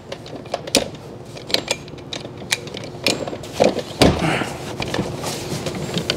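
Telescopic ladder of a rooftop tent being collapsed by hand: a string of separate sharp metal clicks and clacks as its sections slide together, with a louder knock and clatter about four seconds in.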